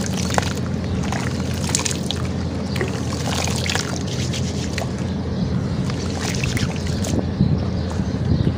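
Hands squishing and sloshing wet, gritty sand-cement slurry in a plastic basin, with many small crackles and squelches over a steady low hum.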